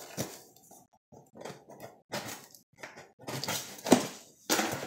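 Cardboard box being cut open along its taped seams: a run of short, irregular scraping and rasping strokes of a blade and hand on cardboard, with a sharper knock about four seconds in.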